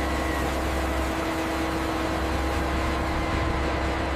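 Crane's engine running steadily: a low rumble and a steady hum over a wash of noise.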